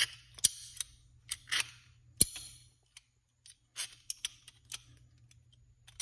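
Milwaukee 8-inch V-jaw pliers being handled and worked, giving a string of irregular sharp metal clicks and snaps, the loudest about two seconds in.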